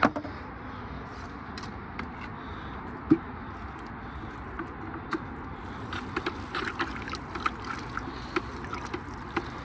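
A stick stirring a thick mash of blended anchovies and water in a plastic bucket, mixing in lactic acid bacteria serum: wet sloshing with a sharp click at the start, a single knock about three seconds in, and many small irregular knocks of the stick against the bucket from about halfway on.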